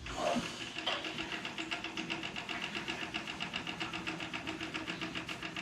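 Household water meter spinning fast, a rapid even mechanical ticking with a faint steady hum. Water is rushing through the meter because the main valve has been reopened after a pipe repair.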